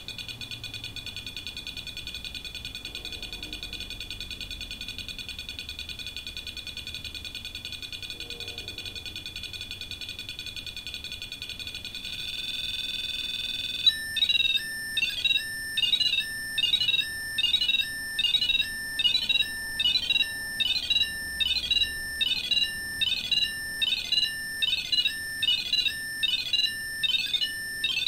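REM pod (ghost-hunting EMF proximity alarm) going off: a steady electronic warbling tone for about twelve seconds, which rises in pitch and then, about fourteen seconds in, switches to rapid beeping at about two beeps a second. The changing tones, which the investigators take for something circling the device, mean its field is being disturbed.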